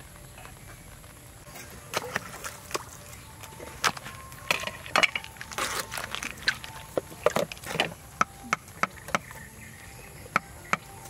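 Irregular sharp knocks of a knife chopping on a wooden board, starting about two seconds in.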